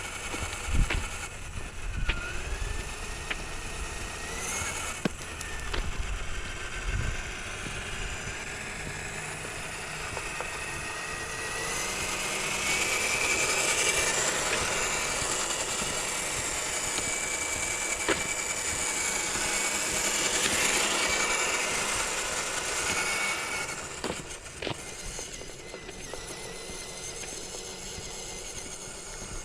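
Electric motor and gearbox of an RC scale crawler truck whining as it drives. The pitch slides up now and then, and the whine runs louder and steadier from about twelve seconds in until about twenty-four seconds, with a few light clicks.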